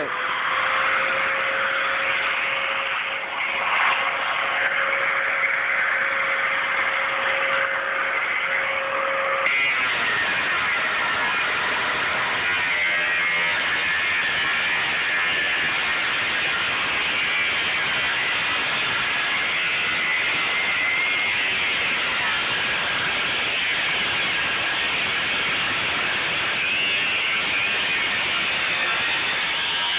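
Electric angle grinder with a cutoff wheel cutting through the steel shell of a hot water heater tank. A steady whine runs through the first ten seconds or so, then drops out, leaving an even harsh grinding noise.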